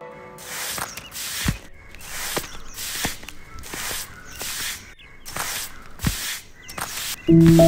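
Broom sweeping a bare-earth yard: regular scratchy swishes, about two a second. Soft music comes in near the end.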